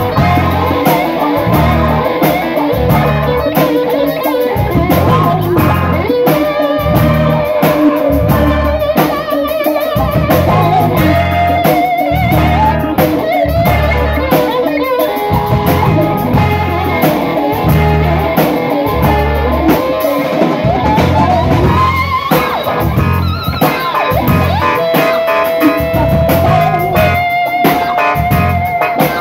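Live rock band playing: an electric guitar lead with long held, bending notes over bass and drum kit keeping a steady beat.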